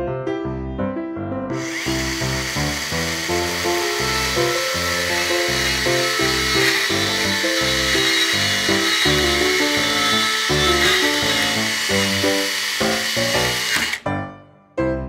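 Miniature chainsaw running and cutting through small wooden dowels, a high-pitched whine and cutting hiss that starts about a second and a half in and cuts off suddenly near the end, over background music.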